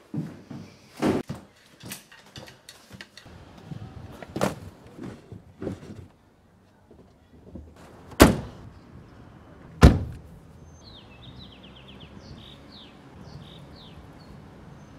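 Cardboard moving boxes being handled, with scattered knocks and scrapes. Then a car's hatchback lid slams shut about eight seconds in, and a car door shuts a second and a half later. Short falling bird chirps come faintly near the end.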